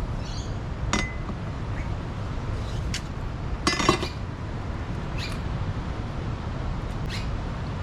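A few sharp clicks and clinks of utensils being handled while a fish is cleaned, the loudest cluster about four seconds in, over a steady low rumble.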